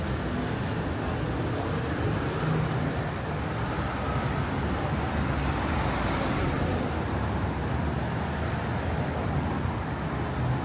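Steady road traffic noise on a city street: the mixed hum of passing motor vehicles' engines and tyres.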